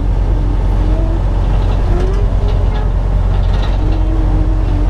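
Steady low drone of a semi-truck's diesel engine and road noise, heard from inside the cab while driving on the highway.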